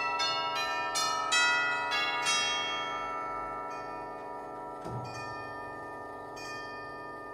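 Harrington tubular bell chime of a Smith and Sons longcase clock striking a run of notes in the first two and a half seconds, then ringing out and slowly fading. A dull knock sounds about five seconds in.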